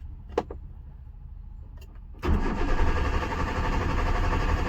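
A click about half a second in, then from about two seconds in the Hyundai Santro's starter cranks the engine steadily without it catching. It is a crank-no-start: no fuel is reaching the engine because the fuel pump motor is not working.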